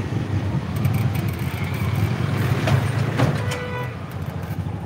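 Engine and road noise heard from inside a moving passenger vehicle: a steady low rumble as it drives along a street. A brief higher pitched tone sounds a little past the three-second mark.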